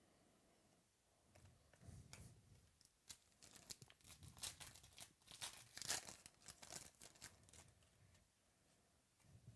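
Faint crinkling and tearing of a trading-card pack's wrapper being opened by hand, a quick run of sharp crackles in the middle.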